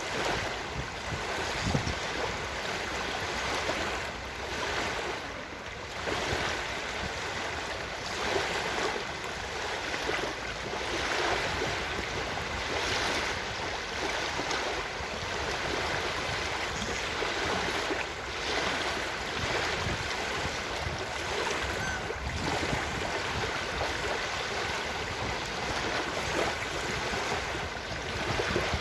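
Ocean surf washing in steadily, swelling and easing every few seconds.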